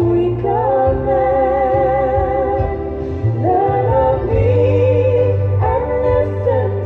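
Recorded song: a woman's voice singing long held notes with vibrato over instrumental accompaniment and a steady bass.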